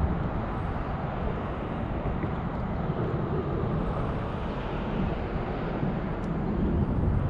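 Steady low wind noise buffeting the microphone, with no distinct events.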